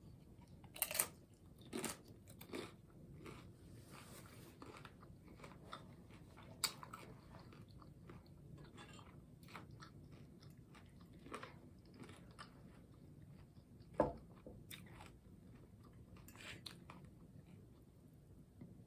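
Close-miked chewing and biting of tacos: faint mouth smacks and crunches scattered throughout, with a louder crunch about 14 seconds in.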